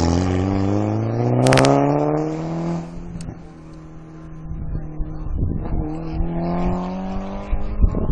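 Rally car engine accelerating hard as it passes, its pitch rising as it pulls away, then fading out about three seconds in, with a single sharp crack partway through. A second rally car's engine then builds up, rising again toward the end.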